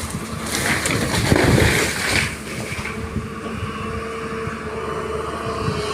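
Excavator engine running steadily, with a loud, rough rattling noise lasting about two seconds near the start.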